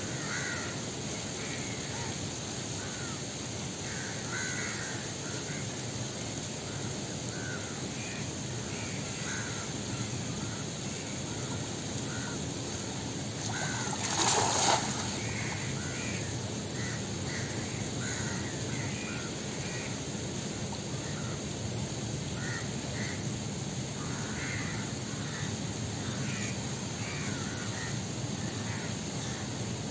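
Birds calling over and over, with short harsh calls, against a steady outdoor hiss. About halfway through there is a brief loud splash and rush as a cast net is thrown out and the thrower steps through shallow water.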